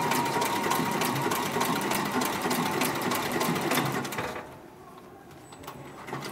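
Heavy-duty 204-102 MD decorative-stitch sewing machine stitching leather and upholstery material, with a steady run of needle strokes over a motor whine. It stops about four seconds in and starts up again near the end.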